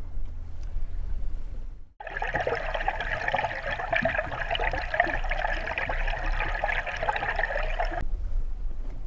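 Underwater sound of water rushing and fizzing past a camera towed beside a trolled lure: a steady crackling rush. It begins with a sudden cut about two seconds in and gives way near the end to the low rumble of wind and the boat's outboard motor running at trolling speed, which is also heard at the start.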